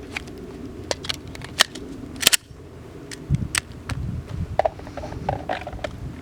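Firearm being handled with gloved hands: a run of sharp clicks and clacks, the loudest a little over two seconds in, then softer knocks and rustling.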